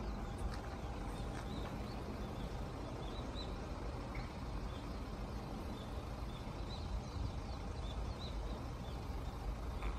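Scattered short bird chirps over a steady low rumble.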